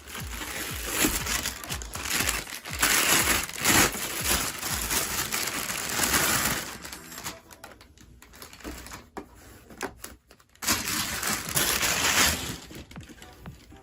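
Unboxing: plastic and foam packaging crinkling and rustling as it is handled, a long stretch of about seven seconds, then a second stretch around eleven seconds in.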